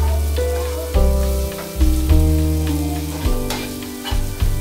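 Background music with held notes over a bass line that changes about once a second. Under it, masala sizzles in a pan as a slotted steel spatula stirs it, with two short sharp scrapes near the end.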